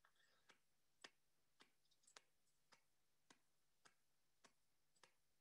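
Faint, evenly spaced taps, a little under two a second: a gloved hand striking a shovel blade laid on top of a snow column, the loading taps of an Extended Column Test.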